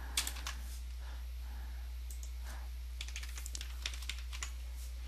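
Computer keyboard typing: a few keystrokes just after the start, then a quick run of keystrokes from about three seconds in, over a steady low hum.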